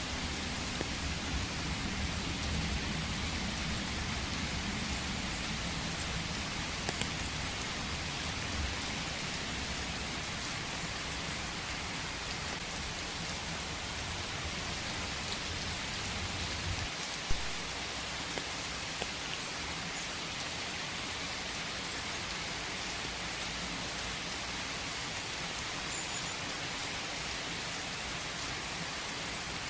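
Steady rain falling on leaves and ground in a forest, an even hiss, with a low rumble underneath for roughly the first ten seconds. One sharp tap stands out about seventeen seconds in.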